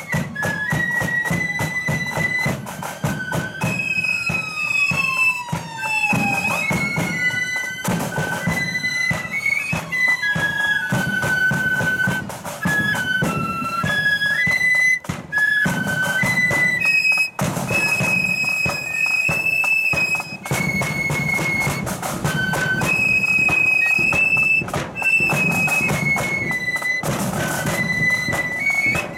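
A marching flute band playing a tune in unison on side-blown flutes, over a steady drum beat.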